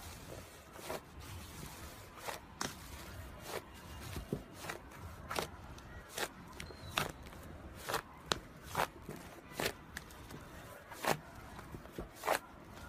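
Fingers pushing and pressing into thick slime in a tub, giving irregular small clicks and pops, about two a second.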